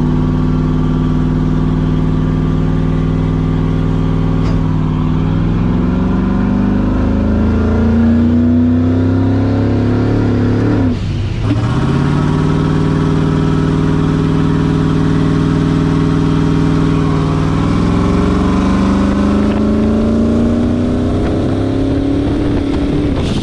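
Turbocharged 5.3-litre V8 car accelerating hard: the engine pitch climbs, drops sharply at a gear change about 11 seconds in, then climbs again. The turbo is slow to build boost, reaching only about 3 psi.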